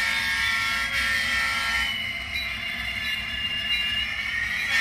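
Sound-equipped Atlas N-scale diesel locomotives, ESU sound decoders playing diesel engine sound through their small onboard speakers as they run in reverse: a steady mix of several tones, some sliding slowly down in pitch, over a faint rumble.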